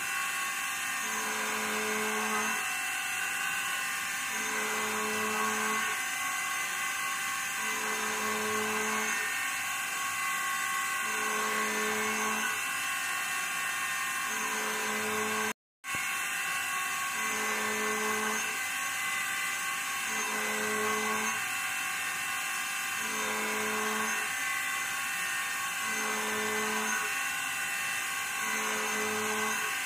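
CNC router spindle with a small end mill side-milling 304 stainless steel, running steadily, with a lower tone that comes and goes about every two seconds through the cut. The sound drops out completely for a moment about halfway through.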